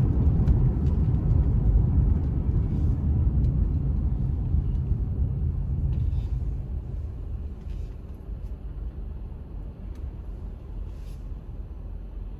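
Low road rumble of a car heard from inside its cabin while driving, dying away over the second half as the car slows to a stop, with a few faint clicks.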